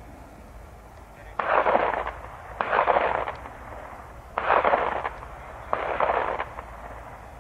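Four sharp bangs a second or two apart, each ringing on for over half a second in a rolling echo.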